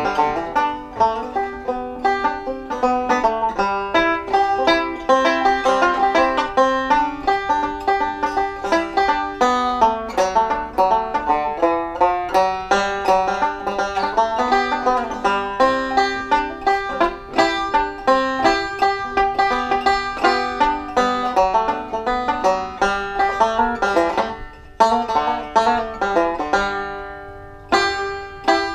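Resonator banjo picked solo in a quick, steady stream of notes, a bluegrass-style tune, with a couple of brief breaks near the end.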